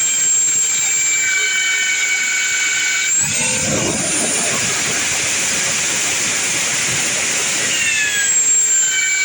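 A high-speed power tool running with a steady high whine, shaping red oak handle scales for the knife. About three seconds in it speeds up and a rough grinding noise joins the whine. It drops back to the lighter whine near the end.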